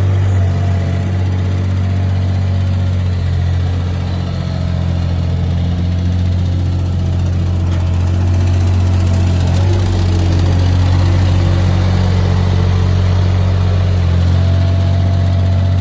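Diesel engine of a Thwaites 1-tonne dumper running steadily at a constant speed, with a deep even hum and no revving.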